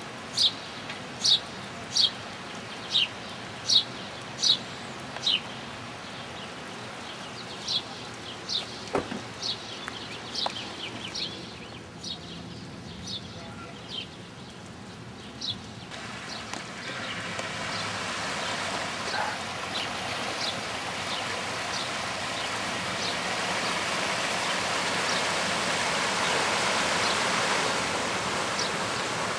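A bird calling in a string of short, sharp, falling chirps, about one every three-quarters of a second, growing sparser after about five seconds. From about halfway a steady rushing noise builds up and becomes the loudest sound.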